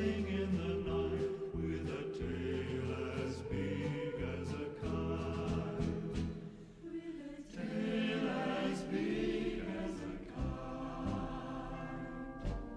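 Choir singing a Christmas carol in sustained, held chords, easing into a brief lull about six seconds in before swelling again.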